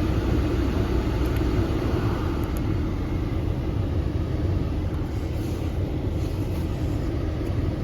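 Audi A6 C5 cabin heater blower fan running at its highest speed: a steady rush of air with a low hum. At this top setting the blower motor's squeak is absent.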